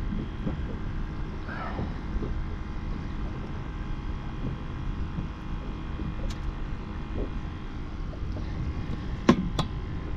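Steady low rumble with a faint hum, the background noise aboard a small fishing boat. Two sharp clicks come close together near the end.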